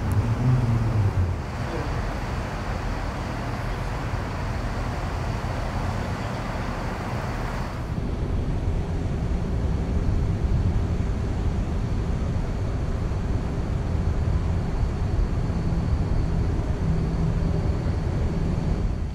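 Steady low rumble of engines and road traffic. About eight seconds in the sound changes abruptly to a steadier hum with a faint held tone.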